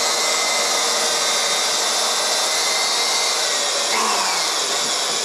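Corded DeWalt electric drill running steadily as it bores a small starter hole into press board, its whine dipping slightly in pitch after about three seconds.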